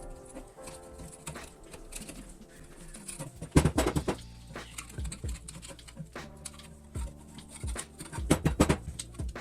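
Irregular clicks and knocks, the loudest clusters at about three and a half seconds in and again near the end, with a low steady hum setting in at about three and a half seconds.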